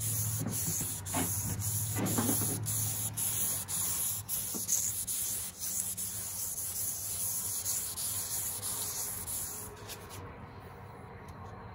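Abrasive paper rubbed by hand over an acid-etched Damascus steel knife blade: repeated hissing strokes over a steady low hum, stopping about ten seconds in.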